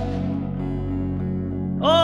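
Turkish folk music: a steady plucked-string bağlama accompaniment plays after a wooden flute phrase fades. Near the end a man's voice comes in on a long held note.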